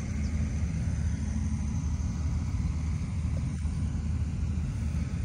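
Steady low engine drone of farm machinery running during the paddy harvest.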